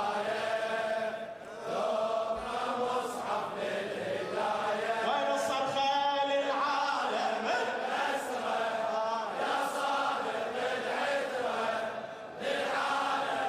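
Male voices chanting the refrain of a Shia latmiyya (mourning chant) together, in phrases with short breaks between them.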